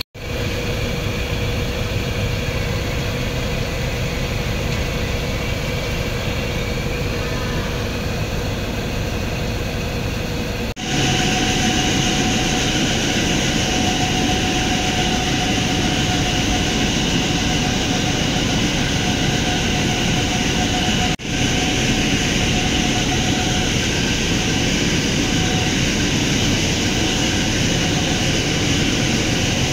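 Ford Ranger 2.2-litre diesel engine running steadily at an even speed, freshly rebuilt after a general overhaul. It is louder from about eleven seconds in and breaks off for an instant about eleven and twenty-one seconds in.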